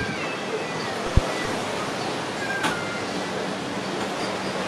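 Steady wash of sea surf against the rocks, with a brief low thump about a second in and a short click a little later.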